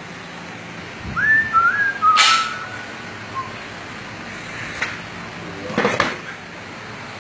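A man whistling a few short sliding notes, with a sharp knock about two seconds in and another short thump near six seconds.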